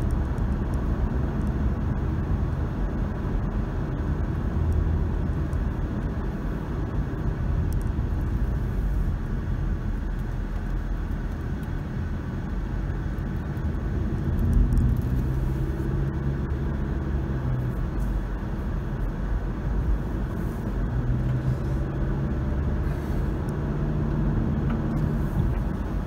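A car being driven at a steady cruise: a continuous low rumble of engine and tyres on the road. About 14 seconds in the engine hum rises in pitch, and a steadier hum comes and goes after that.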